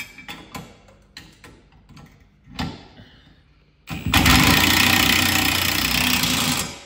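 Cordless impact wrench with a 24 mm socket driving a nut tight on a tow bar mounting bolt: a few light clicks, a short blip about two and a half seconds in, then a loud run of about two and a half seconds starting about four seconds in and stopping just before the end.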